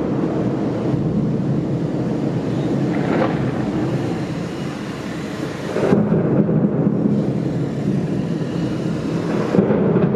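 Thunder rumbling continuously, with a sudden louder peal about six seconds in and another near the end, recorded on a Panasonic Lumix DMC-G7 camera.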